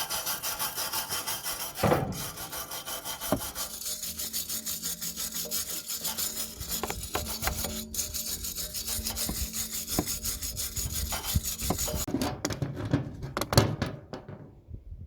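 Rhythmic back-and-forth hand scraping on the exhaust pipe, about four strokes a second. The scraping turns duller about four seconds in and stops shortly before the end.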